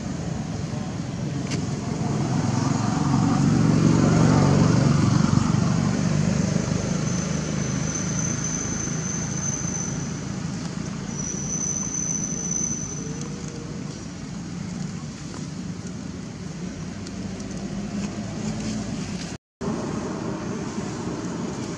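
A motor vehicle passing by, swelling to its loudest about four seconds in and then fading, over a steady outdoor rumble. Twice a faint, high, steady whine sounds briefly, and the sound drops out for a moment near the end.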